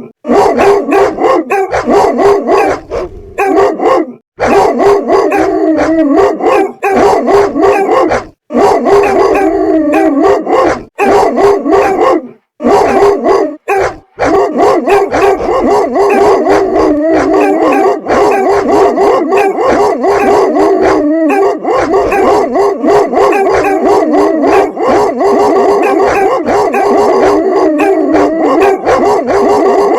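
Dogs barking loudly in rapid, overlapping volleys, with a few short breaks in the first half, then barking without pause.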